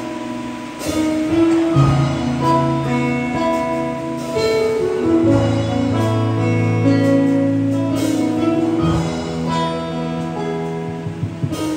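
Live band music from a Roland electric keyboard and a guitar, playing held chords that change every second or two, with a few drum or cymbal hits.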